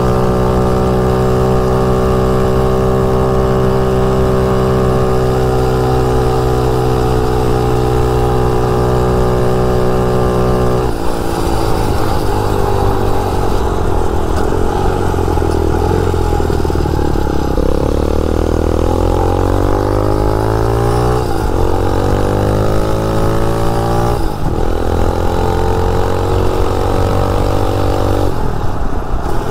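Motovox mini bike's 250cc dirt bike engine running at high, steady revs for about ten seconds at speed, then the revs fall away as the throttle closes. It then pulls again, the pitch rising and dropping back as it shifts up through the gears.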